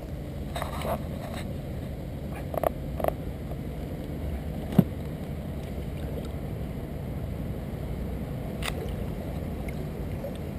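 Steady low rumble of water and wind around a small open boat on a river, with a few short knocks and clicks; the sharpest comes about five seconds in.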